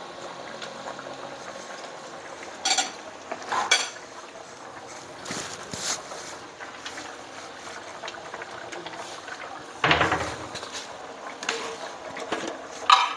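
Pork rib curry simmering in a wok with a steady bubbling, broken by a few sharp clinks and knocks of a spoon, jar and dishes, the heaviest one about ten seconds in.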